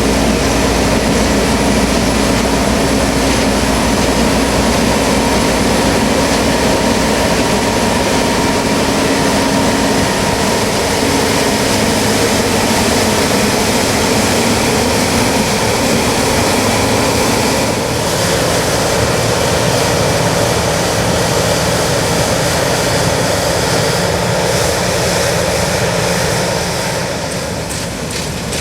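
New Holland CX8090 combine harvester running steadily under load: a loud, continuous machine drone with a held whine, easing slightly near the end.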